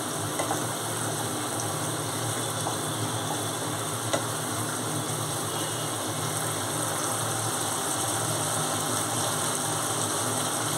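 Thick chhana curry simmering and sizzling in a pan, stirred with a wooden spatula, with a few light knocks of the spatula against the pan about half a second and four seconds in.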